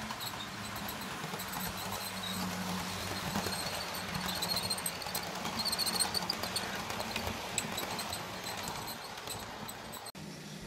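Model train running past on the layout: wheels clicking rapidly over the rail joints over a low steady hum, getting louder about halfway through as the coaches pass closest, then easing off.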